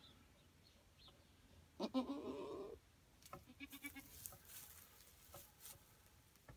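A goat doe in labour bleats once, about two seconds in, for about a second. A short, low grunting sound and scattered clicks and rustling follow.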